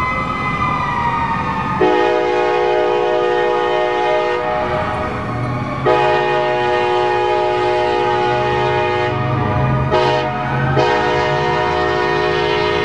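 CSX GP40-2 diesel locomotive's air horn sounding long blasts for the grade crossing, a chord of several steady notes starting about two seconds in, with brief breaks near the middle and again near the end. At the start, a fire truck's Federal Q mechanical siren is winding down in a falling whine.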